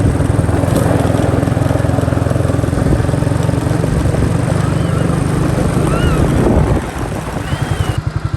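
Quad bike engine running with steady, rapid firing pulses, under a loud rushing noise that eases about seven seconds in.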